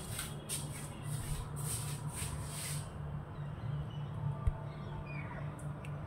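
Rose-ringed parakeets at a rice feeder: a quick run of short, scratchy high sounds, about three a second, for the first three seconds. Then a single thump about four and a half seconds in, over a steady low hum.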